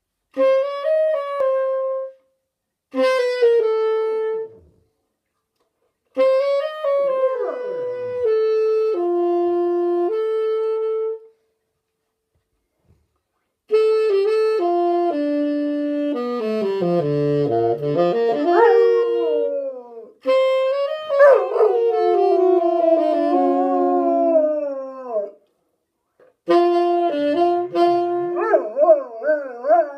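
Bernese mountain dog howling along with a musical instrument. The instrument holds notes and steps between them, while the dog's howls slide and waver over them, in several phrases with short pauses between.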